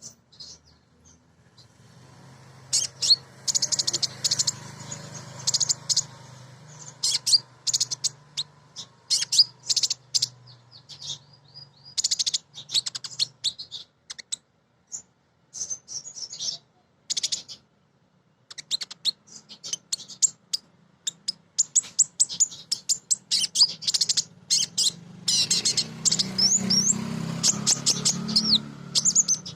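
Female kolibri ninja sunbird calling in rapid high chirps and twittering runs, in bursts with short gaps: a female's chatter used to call males and set them singing. A faint low hum lies underneath near the start and again near the end.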